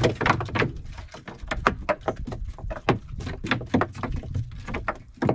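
Rapid, irregular taps and knocks in a small open boat, over a steady low rumble.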